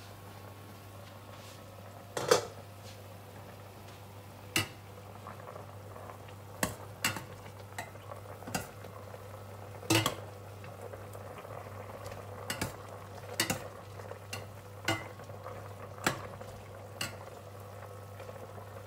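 A spoon stirring beef in a stainless steel pot of boiling water, knocking sharply against the metal more than a dozen times at irregular intervals, the loudest knock about two seconds in. A steady low hum runs underneath.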